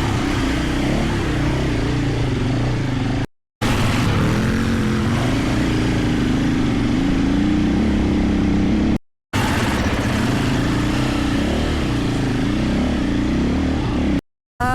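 Enduro motorcycle engines running, in three stretches separated by brief silent cuts, with the pitch wavering a little as the throttle changes.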